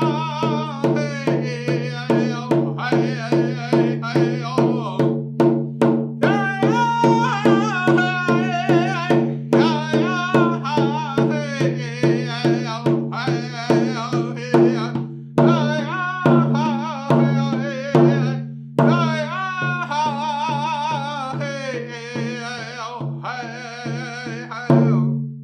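A man singing a blessing song to his own steady beat on a rawhide hand drum, about two strikes a second. The song ends near the end with a last strike that is left to ring.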